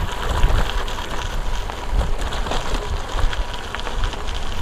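Gravel bike riding over a rough, narrow dirt track: tyres crackling over the ground with small rattles and ticks from the bike, and wind buffeting the handlebar camera's microphone in an uneven low rumble.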